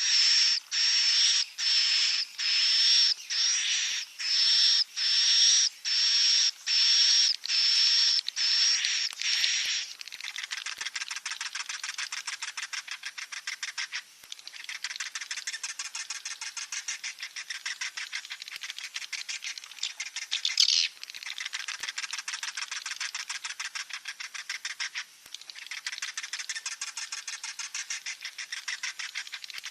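Swiftlet chicks calling: a string of high calls, a little over one a second, for about the first ten seconds, then a fast pulsing chatter in long phrases with short breaks.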